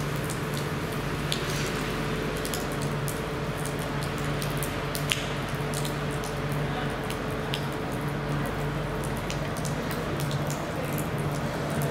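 Rain falling on a wet asphalt platform, drops splashing into puddles as a steady hiss with many small sharp drip clicks. A steady low hum runs underneath.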